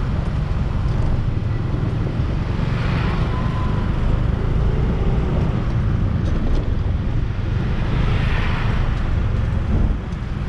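Single-cylinder Yamaha Aerox scooter riding along a street: a steady low rumble of engine, road and wind on the microphone, with two brief swells of hiss about three and eight seconds in.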